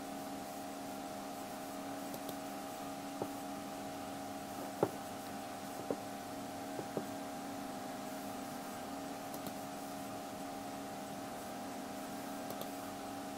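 Steady electrical hum with several fixed pitches, with a few short faint clicks in the middle.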